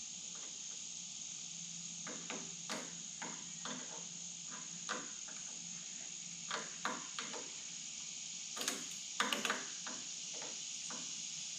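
Scattered clicks and light knocks of hands and tools working on the wiring and carburettor fittings in a VW bus engine bay, with a cluster of louder knocks about nine seconds in. Under them runs a steady high-pitched whine.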